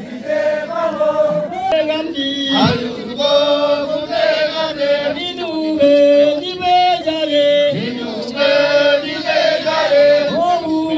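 Men's voices chanting a traditional Nyishi song together into microphones, in long held notes that step from pitch to pitch.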